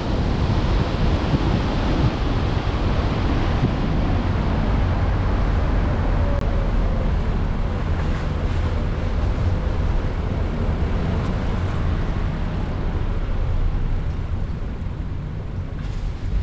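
Wind rushing over a car-mounted camera's microphone, mixed with tyre and road noise from a moving car on wet asphalt: a steady, rumbling hiss that eases slightly near the end.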